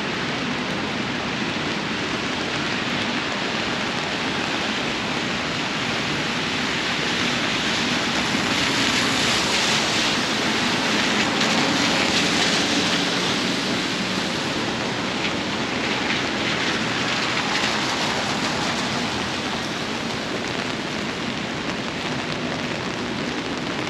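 Steady downpour of rain, growing louder for a few seconds in the middle.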